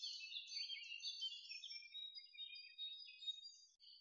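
Faint chorus of small birds chirping and twittering, many short high calls overlapping without a break.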